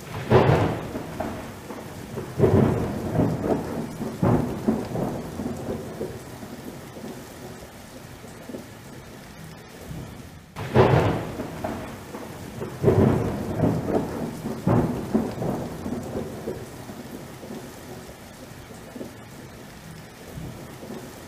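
Thunderstorm: two loud thunder cracks about ten seconds apart, each rolling off into several seconds of rumbles, over a steady sound of rain.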